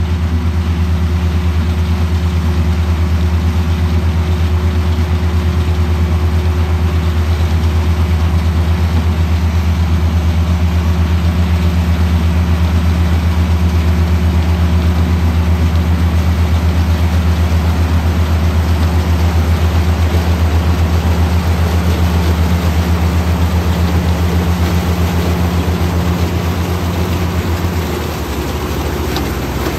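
Case IH sugarcane harvester and the tractor hauling the cane wagon beside it, their diesel engines running steadily under load with a deep hum and a steady rush of noise as the harvester chops cane and blows it out of its elevator. Near the end the engine hum changes pitch and dips a little as the tractor comes closer.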